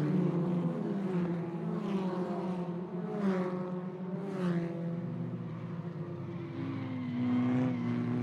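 Racing car engines running at speed as several cars go by, the engine note sliding down in pitch with each pass.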